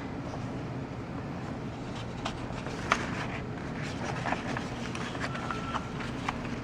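Cardboard packaging being handled: scattered light knocks and clicks over a steady low hum, with a brief high tone about five and a half seconds in.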